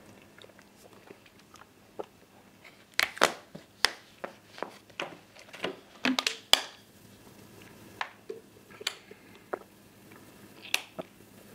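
Thin plastic water bottles crackling and clicking as they are gripped and drunk from: a scatter of short, sharp crinkles, thickest in the middle.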